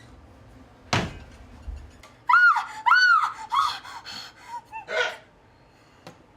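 A person hiccupping, once about a second in and again about five seconds in. Between the hiccups comes a run of short high-pitched squeals that rise and fall, two loud ones followed by several softer ones.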